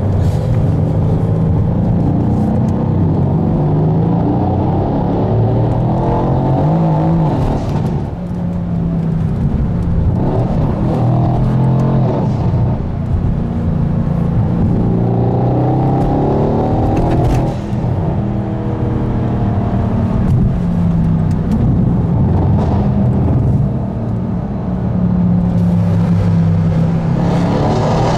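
Twin-turbo V8 of a RennTech-tuned Mercedes-AMG C63 S (W205), heard from inside the car while accelerating hard. The pitch climbs and drops back several times as it shifts up through the gears.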